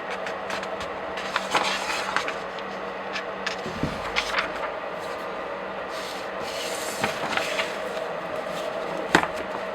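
Pages of comic books or graphic novels flipped by hand: paper rustling and crackling in several separate page turns, with a dull low thud a little before the middle.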